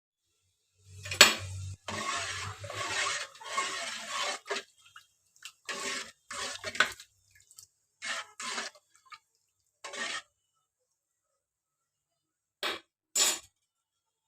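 Pots, pans and utensils clattering and clinking in a kitchen, in irregular short bursts, with a sharp clink about a second in.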